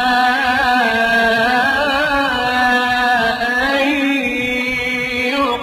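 A man reciting the Quran in a melodic chanted style, drawing out one long ornamented phrase whose pitch wavers up and down, with a brief pause near the end.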